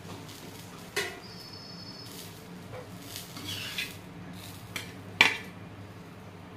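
Steel spatula clinking and scraping on an iron tawa while lifting a toasted sandwich off it: a sharp clink about a second in that rings briefly, a scrape around three to four seconds, and the loudest clank a little after five seconds as the sandwich goes onto a steel plate.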